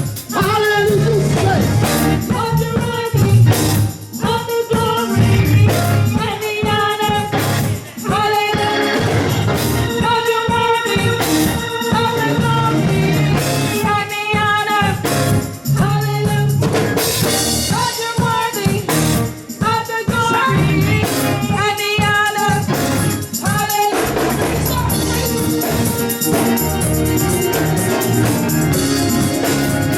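Live gospel music: singers over a band with a driving drum beat and tambourine.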